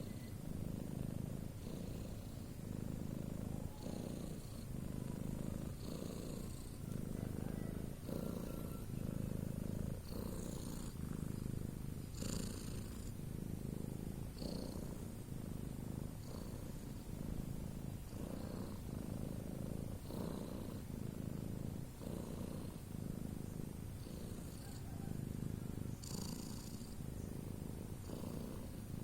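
Domestic cat snoring: low, raspy breaths in a steady rhythm, with faint high whistles on a few of the breaths.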